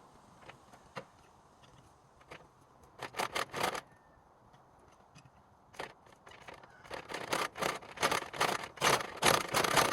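Scraping and clattering of a log being turned over on a portable sawmill bed. It comes in short bursts: a cluster about three seconds in, then a dense run of scrapes and knocks through the last three seconds.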